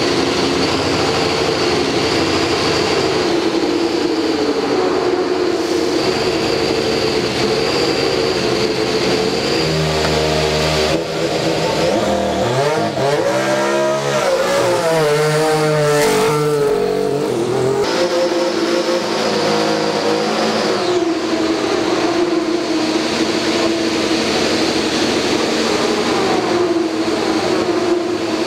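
Sauber Formula One car's turbocharged V6 engine running at a steady idle, revved up and down in a series of blips about halfway through.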